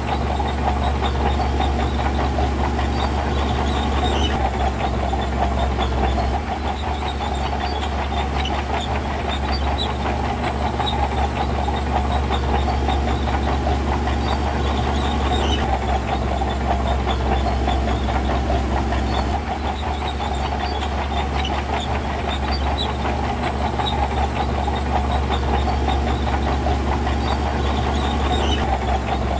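Heavy diesel earthmoving machinery running steadily, with a dense rattle and clatter over the deep engine sound. The sound shifts slightly a few times.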